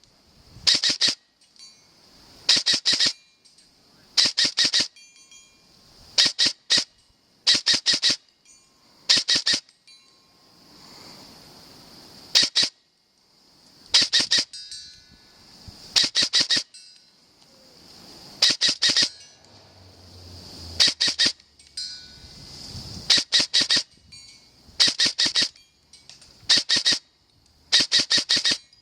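Airsoft gun firing in short groups of sharp cracks, roughly one group every two seconds, each group two to four shots close together. A steady high-pitched whine runs underneath.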